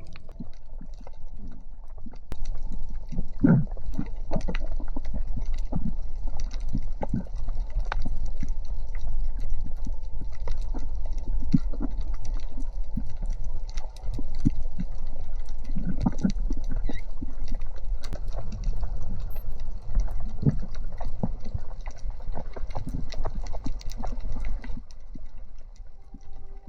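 Muffled underwater sound picked up by a camera while snorkeling: a low rumble of moving water with many irregular clicks and knocks.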